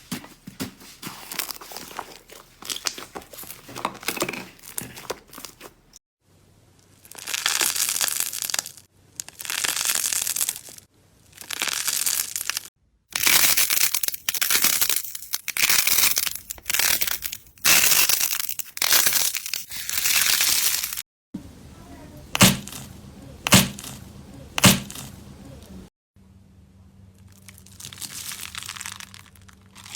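Hands working crunchy slime, giving crinkling, crackling and tearing sounds in a run of short clips. Loud crackly bursts of about a second each come through the middle, and three sharp loud snaps follow near the end.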